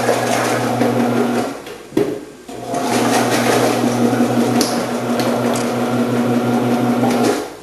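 Omcan HLC 300 vegetable prep machine's electric motor running with a steady hum while the slicing and dicing discs cut vegetables fed through the chute. It stops after about a second and a half, a sharp knock comes about two seconds in, and it runs again until near the end.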